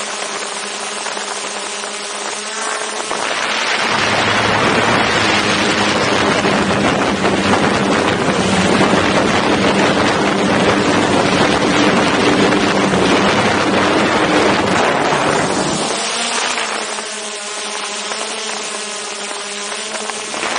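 DJI Mavic 2 Zoom quadcopter's propellers humming steadily just above the microphone. From about three seconds in, a loud rush of wind noise swamps the hum; it drops away again about sixteen seconds in and the steady propeller hum returns.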